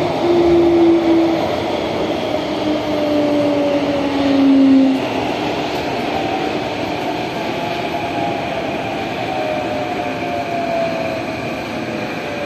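Singapore MRT train running through an underground tunnel, heard from inside the carriage: a steady rumble of wheels and rushing air, with whining tones that slowly fall in pitch.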